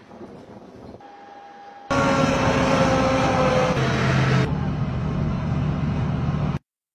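Engines of heavy military trucks carrying multiple rocket launchers, running under way. The sound starts abruptly about two seconds in, with a steady whine that falls slightly. It changes to a lower drone a little past halfway and cuts off just before the end.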